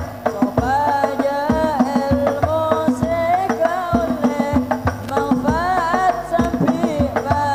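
Islamic devotional song (sholawat) with hadrah-style hand drums: a young man's solo voice sings long ornamented lines into a microphone over a steady beat on a darbuka and a bass drum.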